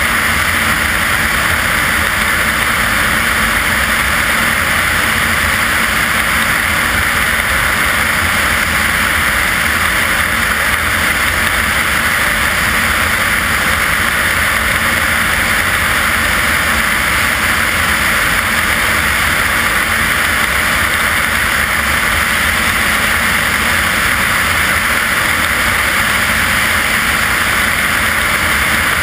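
Steady rush of airflow over an exterior-mounted camera on a single-engine propeller aircraft in flight, with the engine and propeller droning underneath.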